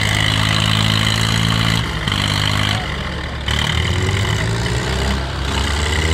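Diesel tractor engines running under load in a tochan tug-of-war pull between a Sukhman 1575 Mahindra and a Swaraj 960. The engine note is steady, drops briefly about three seconds in, and then comes back up.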